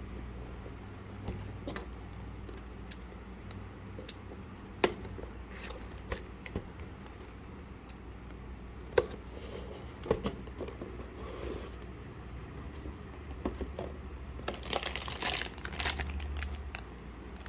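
Plastic-kit packaging being handled and opened: scattered clicks and taps of the box and parts, then a few seconds of plastic wrap crinkling and tearing near the end.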